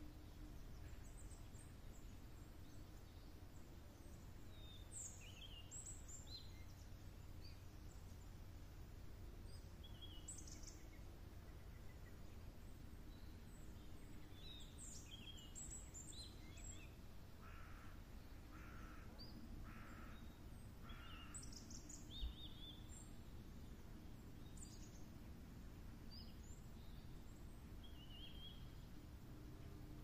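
Small birds chirping in the trees, many short high calls scattered throughout. A little past the middle a larger bird calls four times, about a second apart. Under it runs a faint low steady rumble, with a single low bump soon after those calls.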